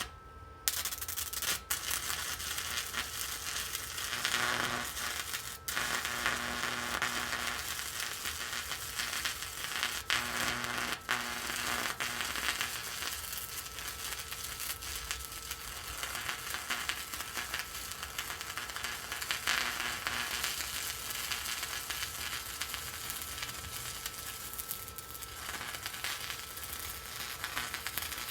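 Stick (arc) welder laying a bead: the electrode's arc crackles and sizzles steadily, with a few sharp pops. The arc strikes about a second in and then holds a steady burn.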